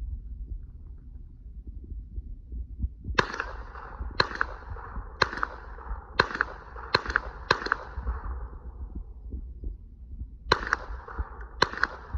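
.22 LR MP5-style rifle fired semi-automatically, shot by shot, with a faux suppressor that does not muffle it. There is a string of six sharp cracks about a second apart, a pause of a few seconds, then three more.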